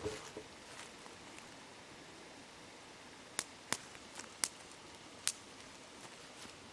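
Wood campfire crackling, with about five sharp pops in the middle of the stretch, over the steady hiss of a murmuring river.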